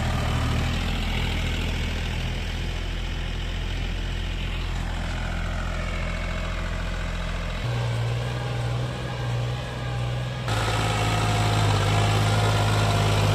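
Mahindra Oja 3140 tractor's three-cylinder diesel engine running steadily under load while pulling a cultivator through the soil. The engine note changes abruptly twice, about eight and ten and a half seconds in.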